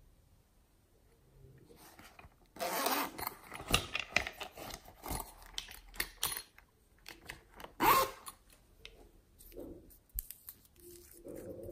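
Close-up handling of a zippered plastic case and small glass nail-polish bottles: rasping zipper-like scrapes, one about two and a half seconds in and the loudest about eight seconds in, among sharp clicks and taps of glass and plastic. Near the end a nail-polish cap is unscrewed.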